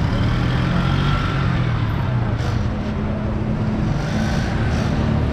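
Street traffic: a vehicle engine running close by with a low, steady drone that shifts pitch slightly a couple of times.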